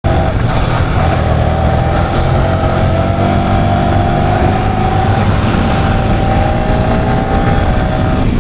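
Motorcycle engine running while under way, its note climbing slowly, with steady wind rumble on the microphone.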